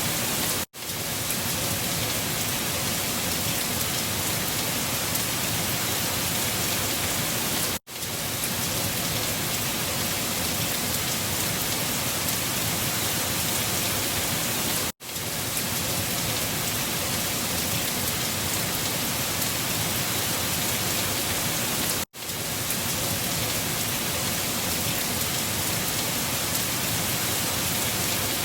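Looped storm ambience: a steady, even hiss that cuts out for a split second about every seven seconds where the short recording restarts, four times in all.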